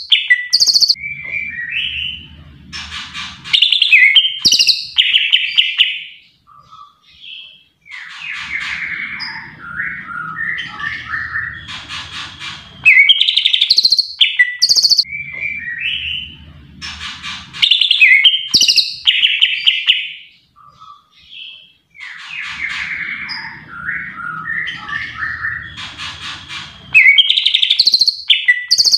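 Cucak ijo (green leafbird) singing: loud, varied chirps, trills and whistled phrases in bursts with short pauses between them.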